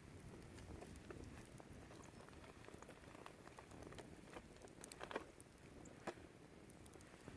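Wood fire burning, with irregular crackles and sharp pops over a low, steady rush of flame; a small cluster of louder pops comes about five seconds in.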